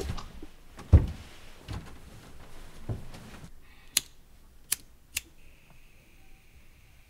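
Muffled thumps and rustling of someone moving, the loudest thump about a second in. Then, against a quieter background, three sharp clicks about half a second apart, followed by a faint steady high hum.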